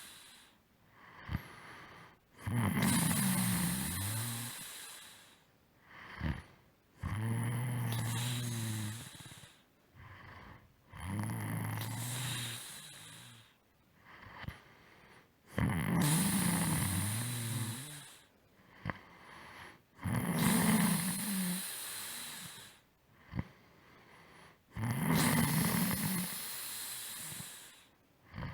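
A person snoring: six long snores, one every four to five seconds, each carrying a low droning pitch. Quieter breaths and a few soft clicks come between them.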